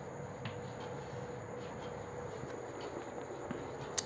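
Chalk drawing on a blackboard: faint scratching with a few light taps, and a sharper click near the end.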